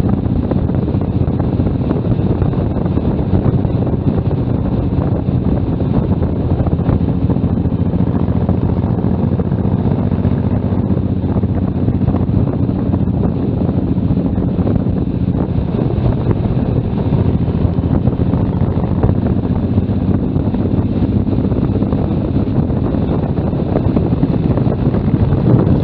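Motorcycle engine running steadily at cruising speed, with heavy wind rumble on the microphone.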